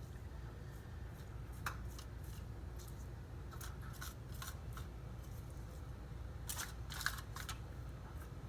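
Light kitchen handling sounds: scattered small clicks and taps of utensils and containers, a few close together near the end, over a steady low hum.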